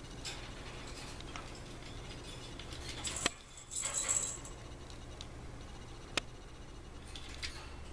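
Pet budgerigar chirping in short high calls, loudest in two bursts about three and four seconds in, with a couple of sharp clicks in between, over a steady low hum.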